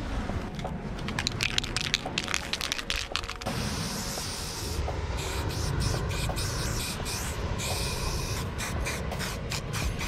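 Aerosol spray-paint can spraying onto a concrete wall. It goes in a run of short bursts, then a longer steady hiss, then short bursts again near the end.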